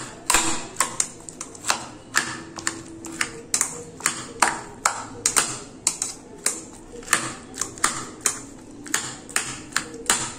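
A flat metal spatula's edge chopping through soft boiled bitter gourd and striking the bottom of a plastic bowl: a run of sharp, irregular taps, about two to three a second.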